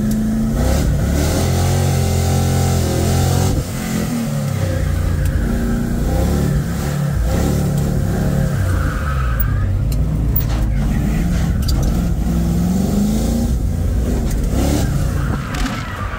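Car engine driven hard, its pitch climbing and falling again and again as it revs up and comes off the throttle, with a sudden drop about three and a half seconds in.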